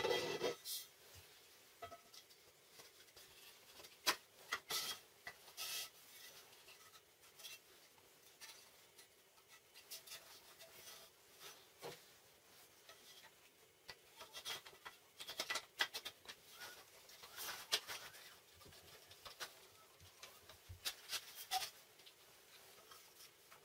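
Scattered light knocks, clicks and scrapes of wooden clamp heads and a 20x40 mm steel rectangular tube being handled, the heads slid along and fitted onto the steel bar. A sharper knock comes right at the start.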